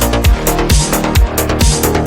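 Electronic dance music with a steady beat: a kick drum about twice a second, ticking hi-hats and sustained synth chords.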